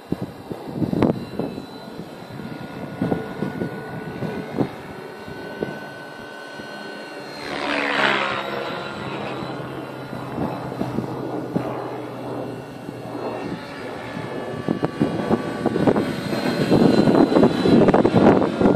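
Electric RC helicopter (Align T-Rex 550 DFC) flying, its motor and rotor whining steadily. About eight seconds in it passes close and its pitch drops as it goes by. Wind buffets the microphone near the end.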